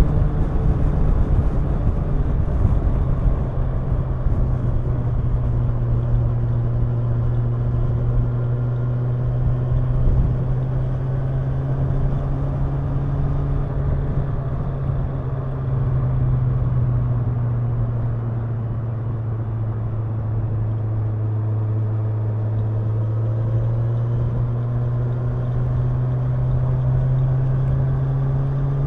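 Kawasaki Ninja 1000's inline-four engine and exhaust held at a steady cruising speed, with wind and road noise. Its pitch sags slightly about two-thirds of the way through and climbs again near the end.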